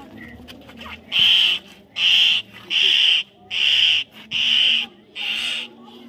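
Common myna giving a series of harsh calls, six in a row, each about half a second long, starting about a second in.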